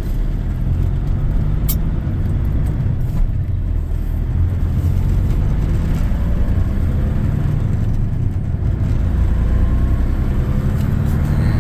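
Semi truck's diesel engine running under load as the truck pulls away with a trailer, heard from inside the cab; the engine note shifts up and down.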